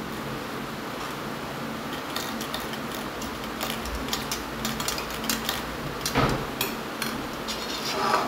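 Cutlery clinking and scraping on a plate during a meal, with scattered light taps over a steady low background hum.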